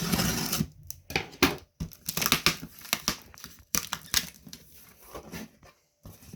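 Sellotape being peeled and torn off a cardboard box, in irregular ripping and crinkling noises with several sharp snaps.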